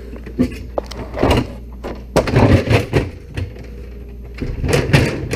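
Irregular knocks, clunks and rattles of parts being handled and fitted back into a side-by-side refrigerator's freezer, in three or four separate clusters, the busiest about halfway through.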